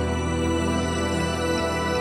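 Background music with calm, sustained tones and a steady bass.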